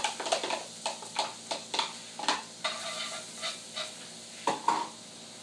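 Garlic sizzling in a hot wok, with irregular scrapes and taps as it is scraped out of a container and stirred in the pan with a spatula.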